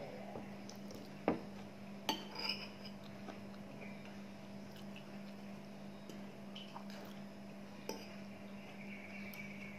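A metal spoon and fork clinking and scraping against a ceramic bowl while eating fried rice, with a few sharp clinks, the loudest about a second in and a couple more around two seconds in.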